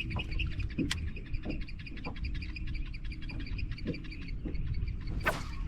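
A bird's rapid, even chattering call, many short high chirps a second, over low rumbling background noise, with a few soft knocks and one sharper knock about five seconds in.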